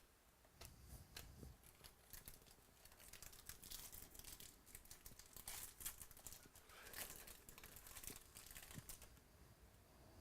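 Faint, irregular rustling and scraping of trading cards being handled and slid past one another, busiest in the middle stretch.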